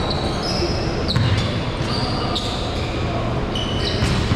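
Basketballs bouncing on a hardwood court in a large, echoing gym, several thuds over a few seconds, with short high sneaker squeaks on the floor.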